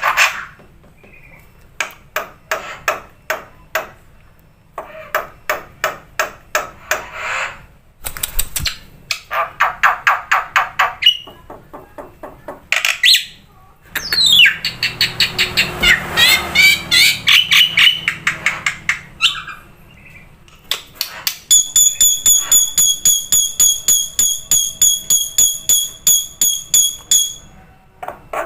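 Black-winged myna (jalak putih) calling in bursts of sharp, harsh notes repeated several times a second, with a twisting, warbling phrase near the middle. About three quarters of the way in it switches to a fast run of clear, high pips that stops just before the end.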